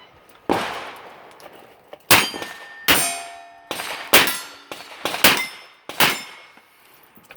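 Revolver shots fired in a quick string at steel targets, about eight sharp reports spread over several seconds, each with the clang of a steel plate ringing after it.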